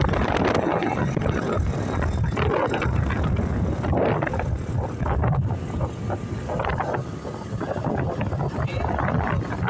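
Wind rushing steadily over the microphone of a moving vehicle, mixed with the low rumble of the vehicle and its tyres on the road.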